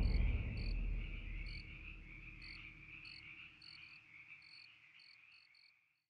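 A night-time insect chorus: a steady high trill with scattered short, high chirps, over a low rumble that dies away in the first couple of seconds. The whole chorus fades out to silence shortly before the end.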